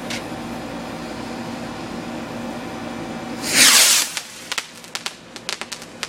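A firework hissing steadily. About three and a half seconds in comes a loud, short whoosh, followed by scattered crackling pops.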